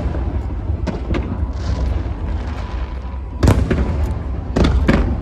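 Aerial fireworks bursting in sharp bangs over a steady low rumble: two about a second in, a louder cluster around three and a half seconds, and two more near the end.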